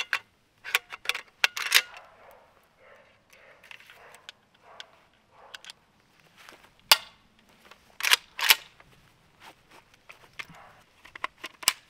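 Sharp metal clicks from a Zastava ZPAP85 AK's KNS adjustable gas piston being dialed up eight clicks: a quick run of clicks in the first two seconds. This is followed by scattered louder metallic clacks as the piston and gas tube go back into the rifle, the loudest about seven and eight and a half seconds in.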